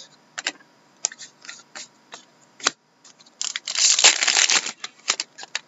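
Trading cards being handled and squared up in short flicks and taps, then about three and a half seconds in a loud crinkling as the foil wrapper of a 2013-14 SP Authentic hockey card pack is torn open, lasting a little over a second, followed by a few more card flicks.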